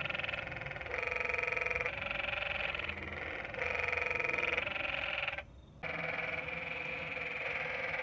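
Canyon treefrog (Dryophytes arenicolor) calling: rapidly pulsed calls about a second long, one after another, with a short pause about five and a half seconds in.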